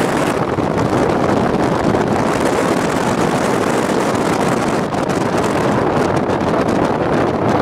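Steady loud wind noise buffeting the microphone from a moving vehicle, an even rush mixed with tyre and road noise.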